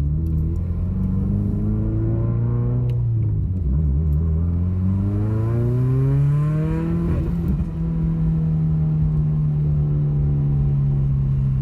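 Turbocharged 2.0-litre flat-four of a 2017 Subaru WRX accelerating hard under boost: the engine note climbs through one gear, drops at a shift and climbs again through the next. About two-thirds of the way through it breaks off at a shift or lift and then settles to a steady cruising drone.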